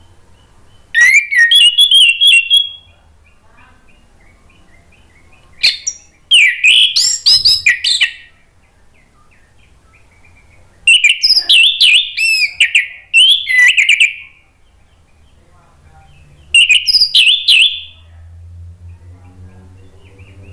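Orange-headed thrush singing in four loud phrases of rapid, varied notes with quick sliding pitches, separated by short pauses. A faint low hum comes in near the end.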